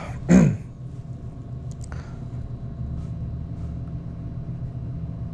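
Steady low rumble and hum of room tone, with a loud, brief sound sliding down in pitch just after the start and a faint click about two seconds in.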